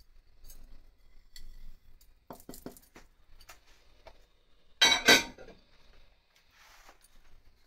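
Clinks and knocks of kitchenware being handled on a stone worktop: a few light clicks about two and a half seconds in, then a louder double knock about five seconds in.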